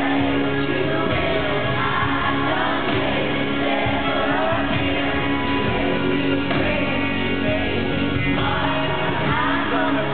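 Live country band playing with women singing in harmony into microphones, recorded from the audience at a concert.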